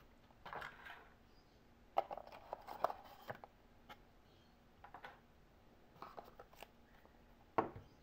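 Cardboard box and paper packaging being handled: scattered soft rustles, light taps and clicks, with a sharper tap near the end.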